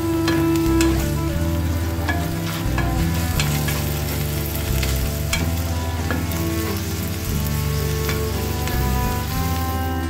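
Minced meat and onion sizzling in a hot nonstick frying pan while a spatula stirs and scrapes the mixture around the pan.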